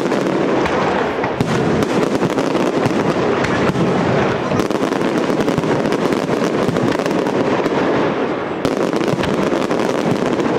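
Aerial firework shells bursting many at a time, a dense, unbroken run of bangs.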